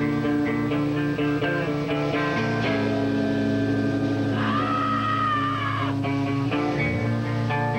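Live band playing, guitar to the fore with sustained, ringing chords; a wavering high note comes in about four and a half seconds in and holds for about a second and a half.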